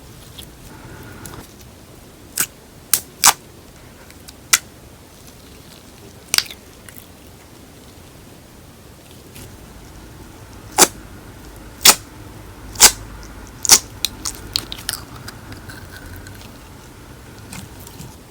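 Slime mixed with paper clay being squeezed and folded by hand, giving sharp, irregular pops, about a dozen, with a quick run of smaller crackles about two-thirds of the way through.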